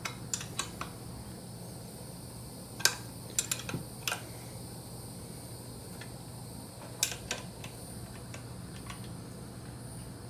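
A hand wrench clinking on the shifter's mounting bolts as they are tightened: scattered sharp metallic clicks, in small clusters near the start, about 3 to 4 seconds in and about 7 seconds in, over a steady low hum.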